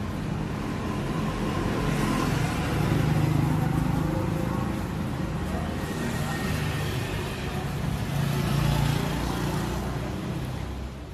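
Road traffic: motor vehicle engines and tyre noise running steadily, swelling louder about three seconds in and again near nine seconds.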